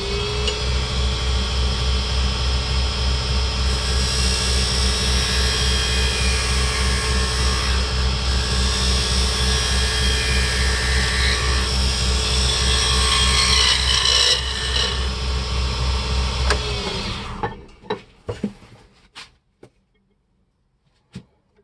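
Wood lathe motor running with a steady hum while a square carbide cutter scrapes inside the bore of a spinning ironwood burl blank, opening it out to fit a ring core. The scraping is loudest from about four seconds to about fourteen seconds in. About seventeen seconds in the lathe shuts off and spins down, followed by a few light knocks.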